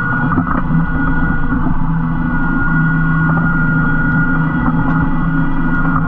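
Tractor engine running steadily under load, pulling a Kverneland E3 reversible plough, with the plough bodies scraping through the soil and a few faint knocks.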